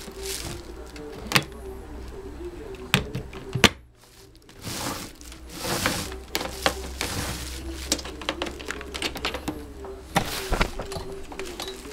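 Handling noise from a SMILE TP968 electric thermopot's plastic lid and steel body: a few sharp knocks, then a quicker run of clicks and rattles as the hinged lid is worked and lifted open.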